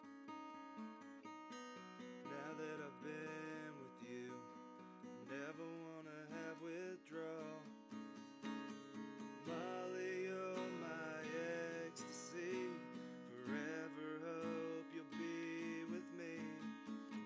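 Acoustic guitar strummed in a steady rhythm. From about two seconds in, a voice sings over it in phrases of a few seconds.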